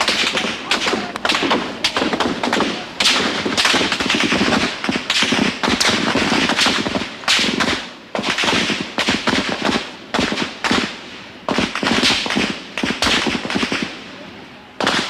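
Heavy rifle fire: many sharp cracks in quick succession, some in rapid runs like automatic bursts, continuing almost without pause and thinning out near the end.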